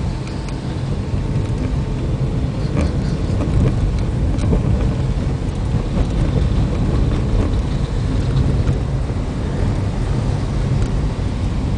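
Car driving on a wet dirt road: a steady low rumble of engine and tyres, with a few faint ticks.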